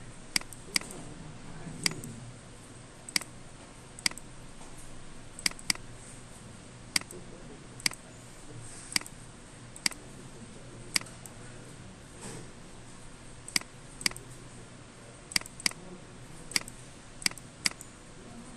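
Computer mouse clicking: sharp single clicks and a few quick double clicks, roughly one a second, over steady background noise.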